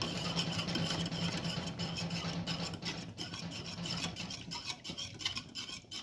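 Small wire whisk stirring liquid in a metal saucepan, a continuous rasping scrape of the wires against the pan made of many quick strokes.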